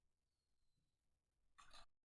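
Near silence in a small room, with one brief faint rustle near the end.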